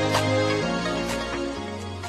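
Background music: an electronic intro with held notes and a beat about once a second, fading out near the end.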